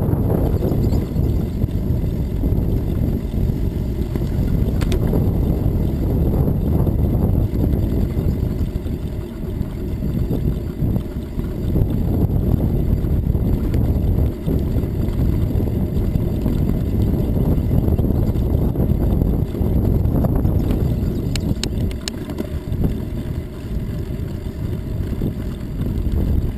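Wind buffeting the microphone of a camera on a moving bicycle: a loud low rumble that rises and falls.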